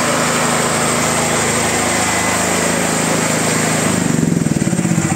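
Huter DY8000LX petrol generator's single-cylinder four-stroke engine running steadily. About four seconds in, its note drops and turns into a more distinct, pulsing beat.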